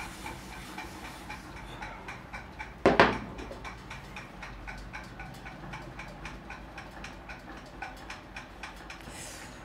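Steady, even ticking of a clock, with one loud knock about three seconds in.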